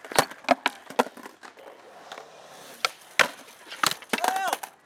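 Skateboard on concrete: a string of sharp wooden clacks as the deck is popped and the wheels and tail slap the ground, ending with a short squealing scrape about four seconds in.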